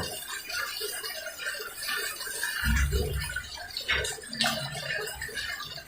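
Public-restroom toilet flushing nonstop, water rushing steadily through the bowl: the flush will not shut off. There are a couple of low bumps about halfway through.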